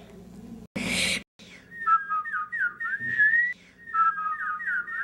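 A short hiss about a second in, then a run of high whistled chirps that slide up and down in pitch, with a brief pause a little past the middle.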